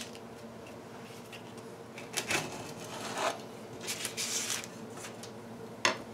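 Sandpaper strip being handled and cut along a wooden straightedge: a few short scraping, rustling noises, then a sharp tap near the end, over a faint steady hum.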